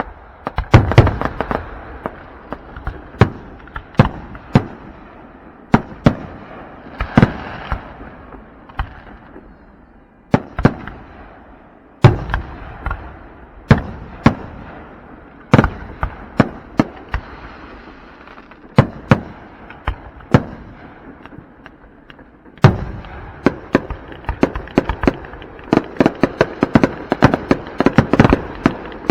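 Aerial fireworks bursting: irregular loud booms, each trailed by crackling. Near the end they quicken into a dense rapid barrage.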